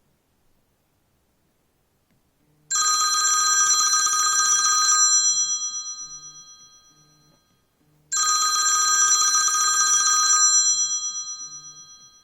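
iPhone X ringtone for an incoming call: two rings of a rapid, high trill, the first about two and a half seconds in and the second about five seconds later, each starting suddenly and fading away over a couple of seconds.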